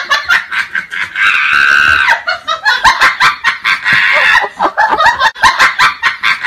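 A person laughing hard in quick, choppy bursts, with a drawn-out high cry a little over a second in.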